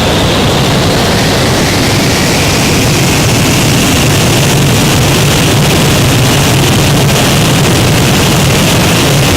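Loud, steady roar of an Il-76 firefighting aircraft's engines and rushing air, heard from on board during a drop run. It holds level throughout, with a low steady hum and a high steady whine under the rushing noise.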